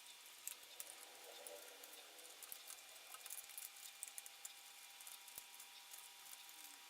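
Near silence: steady faint hiss with a thin steady hum, broken by many small, light scattered clicks.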